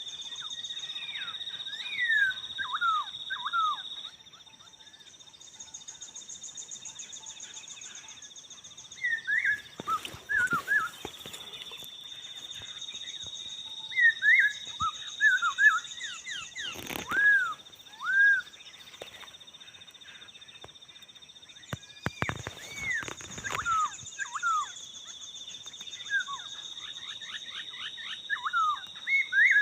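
Laughingthrushes calling in short groups of whistled notes that fall in pitch, over a steady high insect drone. A few brief knocks come about a third, half and three-quarters of the way through.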